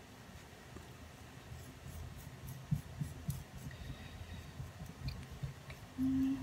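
Faint sounds of wet clay being handled and worked by hand: soft scrapes, rubbing and a few light taps. A short low hum sounds near the end.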